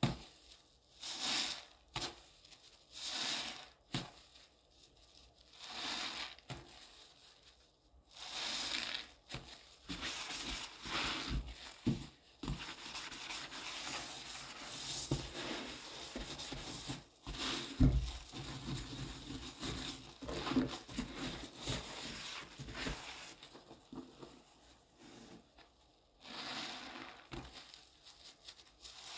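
A smiley-face scrub sponge in a gloved hand squishes and rubs through thick, foamy cleaning paste in a sink. The strokes come about every two seconds at first, then run together into continuous working, ease off, and pick up again near the end.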